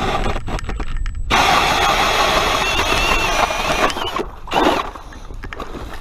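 Power ice auger running hard, stopping briefly about half a second in, then revving again for about three seconds before cutting off, with a short extra burst just after.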